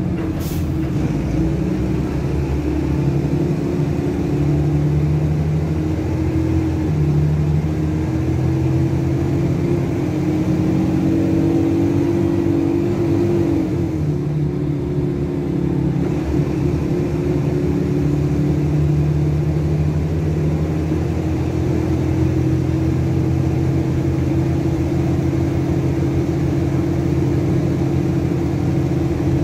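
Rear-mounted Cummins ISBe six-cylinder diesel of a Materfer city bus heard from inside the passenger cabin while driving, its note rising and falling several times as the bus speeds up and eases off through the gears of its automatic gearbox.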